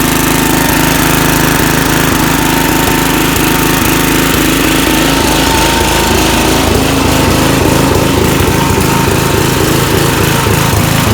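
Snapper Hi-Vac mower's small engine running steadily, having started on a stronger battery.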